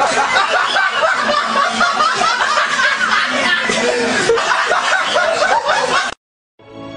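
Laughter, snickering and chuckling, that cuts off suddenly about six seconds in. After a brief silence, quieter music begins near the end.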